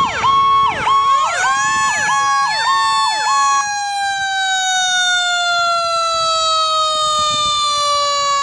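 Fire apparatus sirens. One siren cycles rapidly for the first three and a half seconds, then stops. Another siren's wail holds and falls slowly in pitch through the rest.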